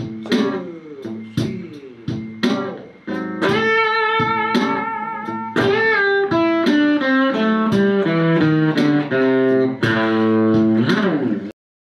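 Blues lead phrase on a Stratocaster-style electric guitar in A minor pentatonic with the flat fifth. Several bent notes lead into a held note with wide bend vibrato, then a stepwise descending run that ends on a low root note about eleven and a half seconds in.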